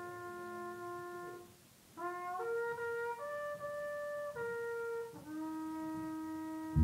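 Band music: a slow brass melody of long held notes, each changing pitch after a second or so, with a brief break about one and a half seconds in.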